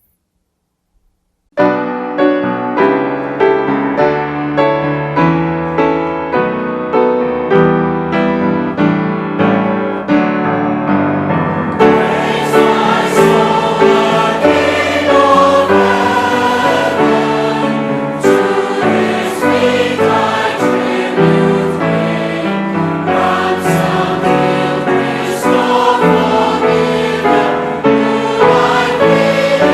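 Church music starts after about a second and a half of silence: a keyboard plays steady, evenly struck chords, and the sound grows fuller and brighter about twelve seconds in.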